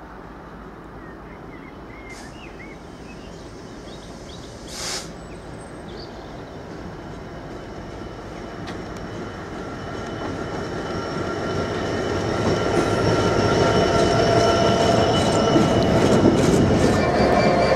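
Class 66 diesel locomotive hauling a train of empty steel-scrap box wagons, approaching and passing, its sound growing steadily louder. From about halfway through, the wagon wheels squeal in steady high tones on the curving junction, with clicks over the rail joints near the end.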